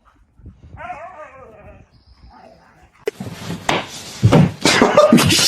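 A dog gives a short wavering whine about a second in. From about three seconds there is a loud, noisy commotion that carries on to the end.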